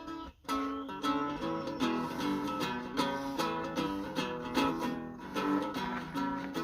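Acoustic guitar played live: a run of picked notes and chords, with a brief break about half a second in.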